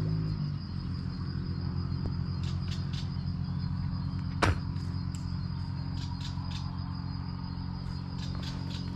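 Insects, crickets by the sound of it, trilling steadily with short repeated chirp pulses over a steady low hum. About halfway through comes one sharp, brief swish.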